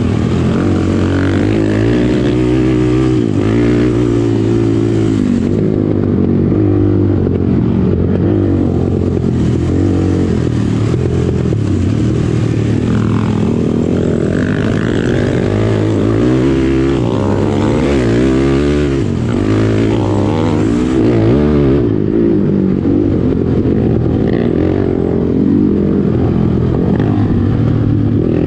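Sport quad's single-cylinder four-stroke engine being ridden hard, its pitch rising and falling over and over with throttle and gear changes.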